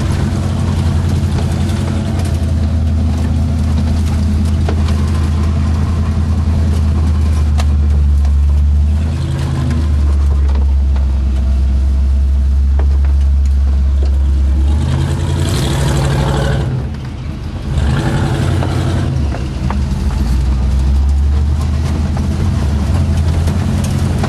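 Off-road 4x4's engine heard from inside the cab while driving over dirt, running hard with its note stepping up and down several times and a brief lull about two-thirds of the way through.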